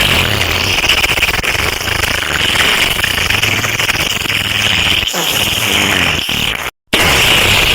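A loud, harsh, distorted sound effect that runs on without a break, cuts out to silence for a moment near the end, and then starts again.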